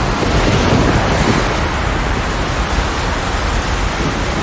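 Steady rushing noise of hurricane wind and surf, presented as Hurricane Katrina.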